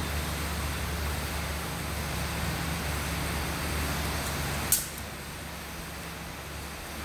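Steady low room hum with one sharp click about two-thirds of the way through, after which the hum is a little quieter.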